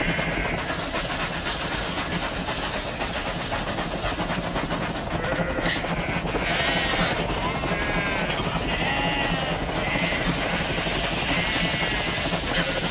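Several sheep bleating, the calls coming more and more often from about halfway through, over the steady noise of a moving train.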